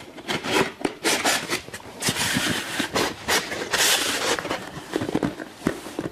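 Plastic track being slid and pushed onto the edge of an expanded-polystyrene hive panel: irregular scraping and rubbing with small clicks, louder about two and four seconds in.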